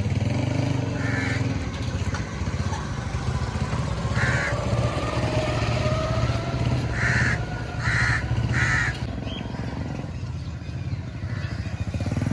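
A crow cawing five times, the last three in quick succession, over a steady low rumble of motorcycle and vehicle engines.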